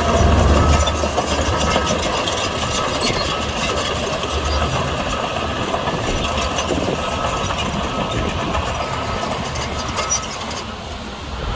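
Heavy diesel engine of a bulldozer running steadily at work, with a loud low rumble in the first second or so. The level dips briefly near the end.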